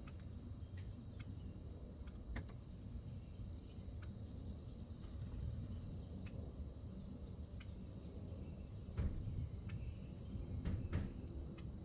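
Insects trilling steadily in a continuous high drone, with a second, faster pulsing trill higher up from about three to six seconds in. Under it runs a low outdoor rumble, broken by scattered sharp ticks and a couple of louder knocks near the end.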